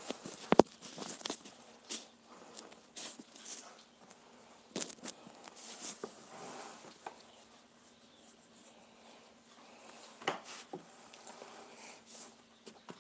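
Scattered knocks, clicks and rubbing from a phone being handled and set in place on a table, with one sharp knock just after the start.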